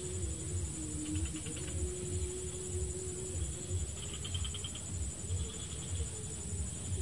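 Tropical swamp ambience: a steady high insect drone, with short pulsed trills from insects or frogs breaking in three times, about 1, 4 and 5½ seconds in. Under it run a faint wavering hum and a low pulsing rumble.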